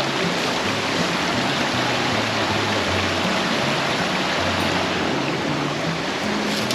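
Steady rush of a waterfall and creek, with background music carrying a low bass line underneath.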